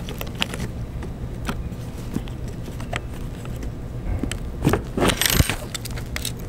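Small clicks, taps and rattles of plastic and metal parts handled while a fan is bolted onto a 3D printer's X carriage, with a louder clattering rattle about five seconds in.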